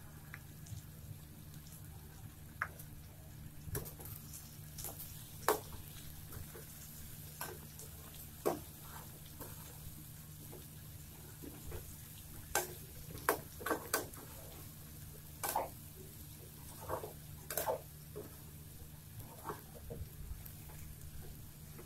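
A spatula stirring and scraping through sliced snake gourd and boiled chickpeas in a frying pan, with irregular clicks and knocks against the pan. The food fries quietly underneath, over a faint steady hum.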